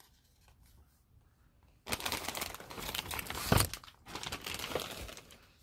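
Clear plastic plant sleeve crinkling loudly as it is handled, starting about two seconds in after a few faint rustles, with a short pause near the four-second mark.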